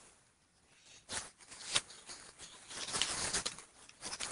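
Soft rustling and light clicking handling noise, starting about a second in and going on in irregular bursts.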